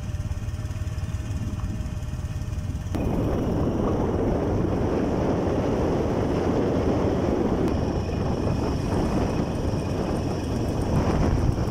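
Motorcycle riding down a hill road: wind rushing over the camera microphone mixed with engine and road noise. It gets louder about three seconds in.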